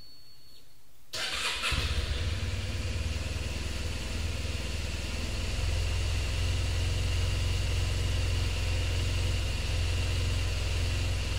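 Motorcycle engine starting about a second in, then idling steadily.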